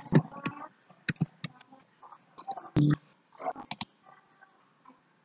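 Scattered sharp clicks and short knocks, with a louder, duller thump about three seconds in; it falls quiet after about four seconds.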